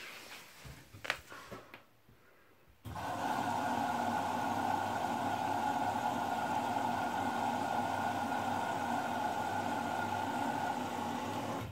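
Front-loading washing machine letting cold water in through its inlet valve for the liquor-cooling step (Laugenabkühlung) of a hygiene wash. A steady rush of water with a hum begins about three seconds in, holds level, and stops near the end.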